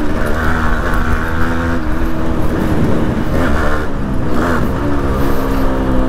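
1986 Yamaha RX 100's two-stroke single-cylinder engine running under way, its pitch dipping around two seconds in and climbing again as it revs up. Heavy wind rumble on the helmet microphone.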